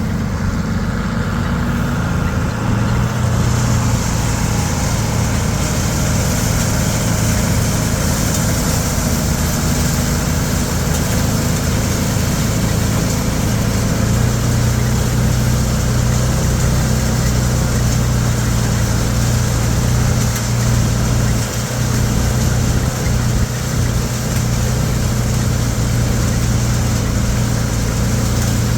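A roughly 140-horsepower farm tractor's engine running steadily under load while pulling a hay rake in the field. A steady higher hiss joins the engine hum about three seconds in.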